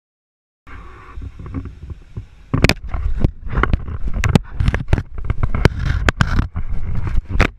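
A crocodile holding an action camera in its jaws: loud rumbling noise on the camera's microphone, joined about two and a half seconds in by a rapid, irregular series of sharp knocks and scrapes as the jaws and teeth work on the camera housing.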